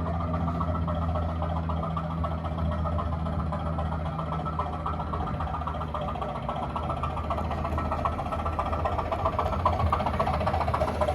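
ESU LokSound V5 sound decoder in a Bachmann class 205 'Thumper' model playing the diesel unit's engine sound through the model's small speaker. It is a steady low engine drone with a rattling clatter over it, a little louder near the end.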